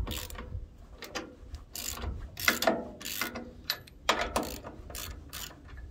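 Ratchet wrench clicking in short, irregular runs as it is swung back and forth, loosening the bolts on a bandsaw mill's wheel bracket.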